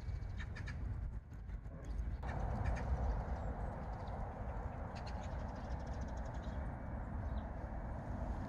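Outdoor ambience with harsh, crow-like bird calls coming in short series, over a low rumble. About two seconds in, a steady hiss joins the background.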